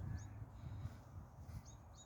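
Faint high bird chirps, one shortly after the start and two more near the end, over a low rumble that fades away in the first second.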